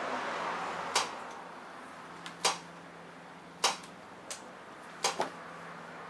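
Sharp mechanical clicks about every one to one and a half seconds, with a quick pair near the end, from the front brake lever of a 1976 Honda CB750A being pumped to force the caliper piston out. A faint steady hum runs underneath.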